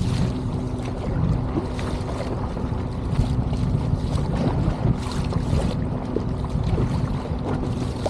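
Strong wind buffeting the microphone over choppy sea, with repeated short splashes of water against an inflatable boat.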